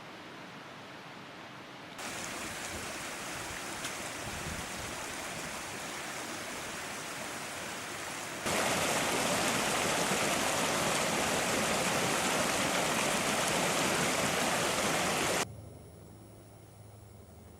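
Creek water rushing, a steady noise that jumps louder twice, about two and eight seconds in, then cuts off abruptly to a quiet background near the end.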